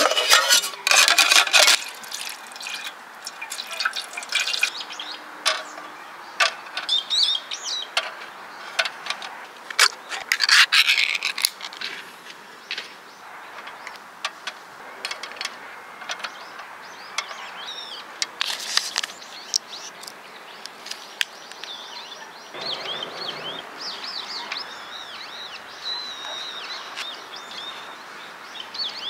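Aluminium mess tin and metal tongs clinking and clattering in short, irregular knocks as food is set in the tin. Birds chirp in the background, most clearly in the last several seconds.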